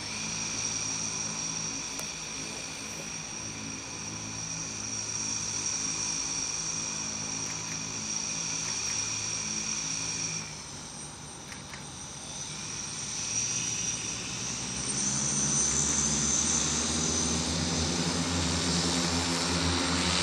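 The 18 electric motors and propellers of a Hexa eVTOL multicopter running on the ground, with a steady whine over a propeller hum. The sound drops back about halfway through, then rises and gets louder over the last few seconds as the rotors spool up to lift off.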